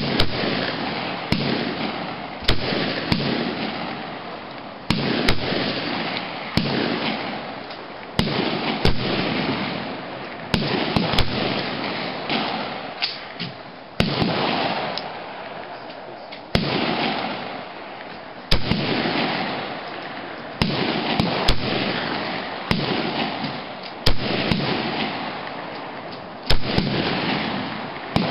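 AK-pattern rifle fired in single shots, one after another. Each shot is sharp and loud with a long echoing tail, spaced irregularly about one to two seconds apart, with a few fainter shots in between.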